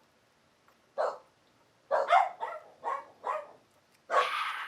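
Pet dogs barking in short, separate barks, about half a dozen in the last four seconds, the final one longer and louder.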